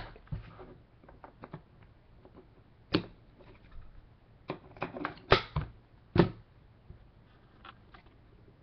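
Scattered clicks and light knocks of trading cards and plastic card holders being handled and set down. A few sharper snaps come around the middle.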